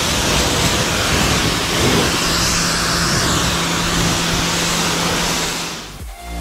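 Water jet from a Giraffe Tools Grandfalls electric pressure washer's wide white-tip nozzle hissing steadily as it sprays onto a car's body panels and wheel, with a steady low hum under it from about a second and a half in. The spray stops about six seconds in.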